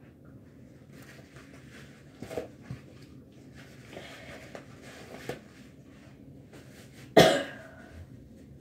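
A girl coughs once, loud and sudden, about seven seconds in. Before it there are a few faint knocks and handling sounds.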